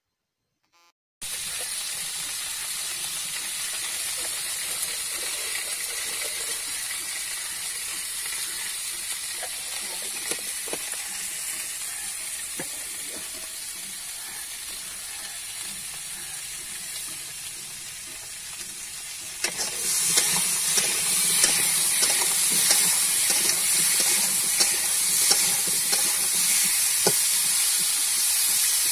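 Potato pieces frying in a steel kadai, a steady sizzle that begins about a second in. About two-thirds of the way through the sizzle grows louder, with a steel spatula scraping and clicking against the pan as the potatoes are stirred.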